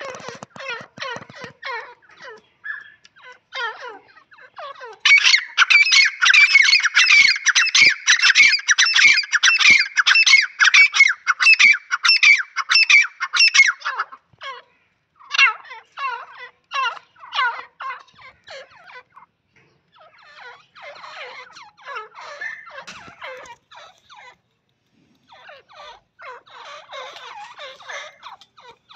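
Grey francolins calling: a long, loud run of rapid, shrill repeated notes about five seconds in that stops suddenly near the middle, followed by shorter, quieter bouts of calls.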